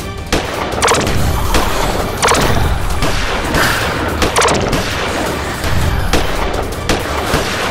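Edited-in sound effects of blaster shots and hits on the zombies: a string of sharp bangs, about one a second, over background music.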